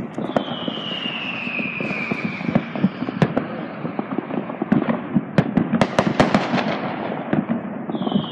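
Ground fireworks crackling and popping in a rapid, irregular string, with the pops thickest in the second half. A whistle falls in pitch for about two seconds starting just after the beginning, and another starts near the end.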